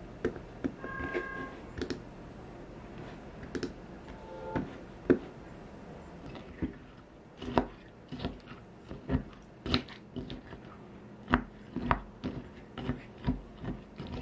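A wooden spoon stirring granola into yogurt in a glass bowl: a run of sharp, uneven taps and clinks against the glass with the crunch of the granola, coming faster in the second half.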